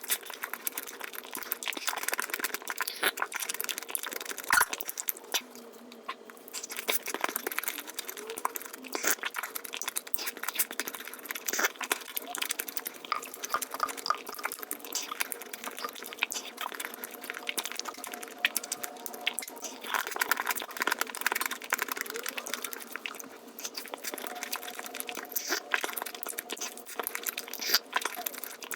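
Close-miked eating sounds sped up many times over: a dense, rapid run of chewing, biting and wet mouth clicks.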